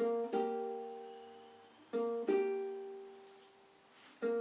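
Low-G ukulele fingerpicked: a quick single note, then two notes plucked together and left to ring and fade. The phrase is played twice, and the next one starts right at the end.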